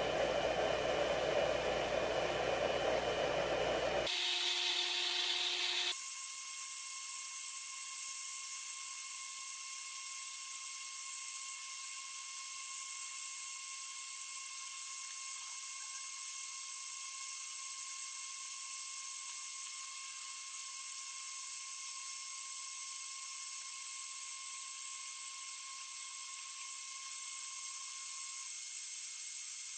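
Steady high-pitched whine and hiss of the power inverter and its plugged-in appliances running under about a 300 W load. About four seconds in, the deeper part of the sound drops out abruptly, leaving a thin high hiss with a steady whine.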